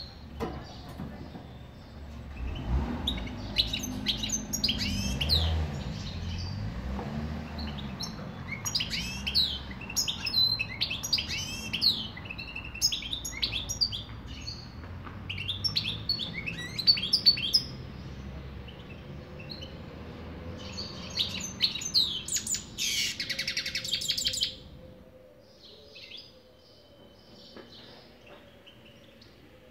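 European goldfinch singing: quick twittering phrases of chirps and trills in bursts, thinning to a few scattered calls in the last few seconds. A short burst of hiss about 23 seconds in, over a low background rumble that stops soon after.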